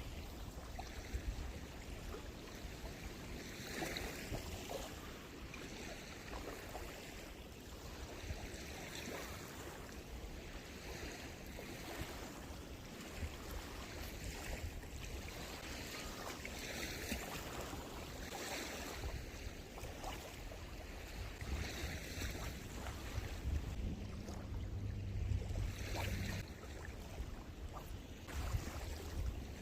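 Small sea waves washing in at the shore every few seconds, with wind rumbling on the microphone.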